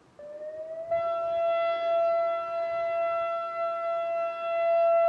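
Federal Signal 2001-SRN rotating electromechanical outdoor warning siren starting up: a short rising wind-up that levels off about a second in into a steady, loud, high tone, its loudness swelling and dipping as it sounds.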